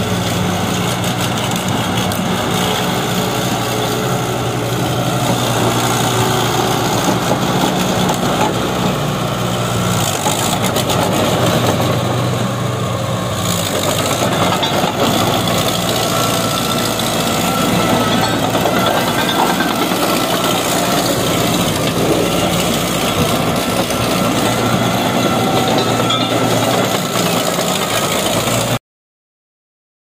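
Komatsu D31E bulldozer's diesel engine running steadily, its note changing about ten seconds in; the sound cuts off suddenly near the end.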